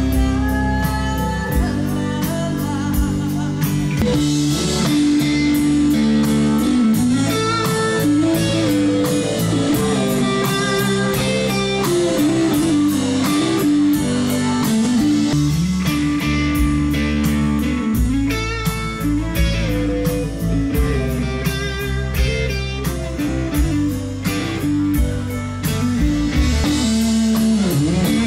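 Live blues-rock band playing an instrumental passage led by a semiclean Fender Stratocaster electric guitar, with bass and drums. Recorded through a Canon DM-100 camcorder microphone with automatic gain control on, the guitar tone is distorted, the percussion tinny and the sound almost mono.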